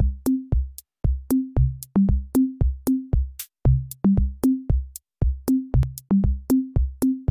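Upbeat intro music: a steady electronic drum beat, each hit paired with a short low bass note stepping among a few pitches, about three hits a second.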